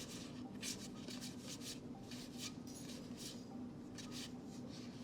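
Trading cards from a Magic: The Gathering booster pack sliding against each other as they are flipped through one by one: soft, irregular swishes every half second or so, over a low steady hum.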